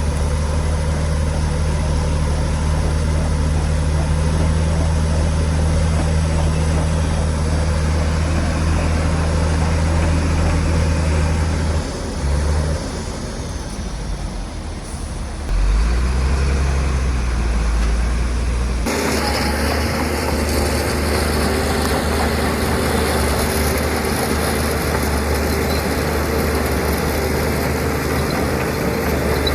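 Heavy diesel engines of earthmoving machinery running steadily. The engine note shifts and dips about twelve to fifteen seconds in, and the sound changes abruptly about nineteen seconds in.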